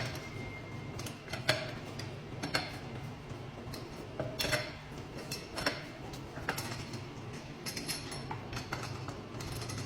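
Irregular light metallic taps and clicks, about one a second, over a steady low hum.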